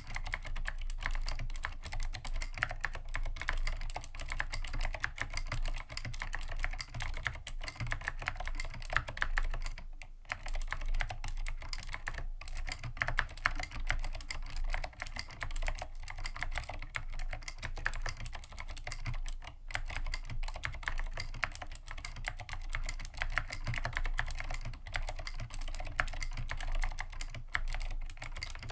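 Continuous fast typing on a Dolch PAC G80-1813 mechanical keyboard with vintage Cherry MX Blue switches and tall SA keycaps: a dense, uneven stream of sharp clicks, with keys bottoming out on the strokes. Typing pauses briefly a few times, about ten, twelve and twenty seconds in.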